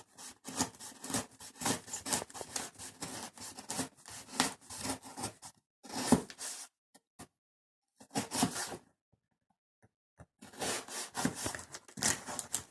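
Cardboard box being worked open: irregular rasping and scraping strokes as the cardboard is cut and pulled at, broken by two near-silent pauses of about a second in the middle.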